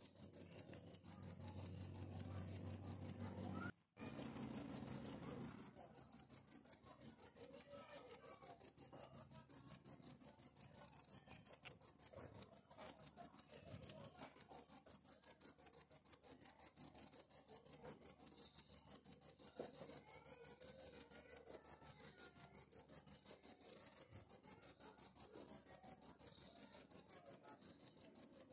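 Crickets chirping: a steady high-pitched trill of rapid, even pulses, briefly cutting out twice.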